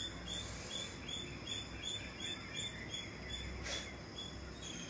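Outdoor ambience: a high, short chirp repeated evenly about three times a second, with a brief rush of noise near the end.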